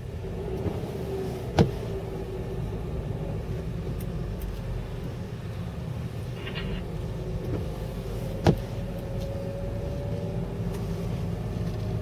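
A car driving on a wet road, heard from inside the cabin: a steady low rumble of engine and tyre noise with a faint wavering hum. Two sharp knocks stand out, one about a second and a half in and another past the middle.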